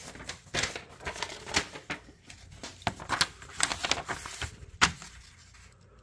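Handling noise: a sheet of paper rustling and a run of light, irregular clicks and taps as the paper and the small pocket knife are picked up and set for a cut.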